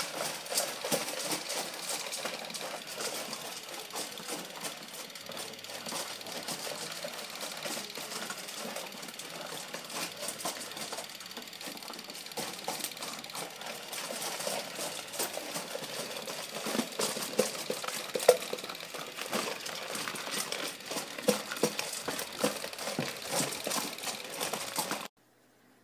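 Steady, rapid mechanical clatter of a Super 8 film projector sound effect, with a few louder knocks among it, stopping suddenly near the end.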